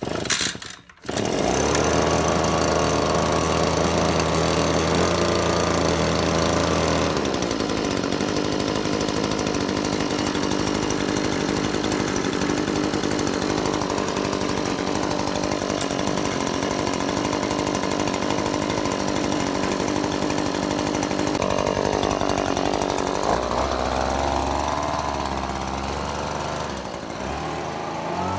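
Echo PB-2520 handheld leaf blower's two-stroke engine pull-started with the choke on: it fires briefly, dies, catches about a second in and keeps running steadily. Its tone changes about seven seconds in, and it revs up and down near the end.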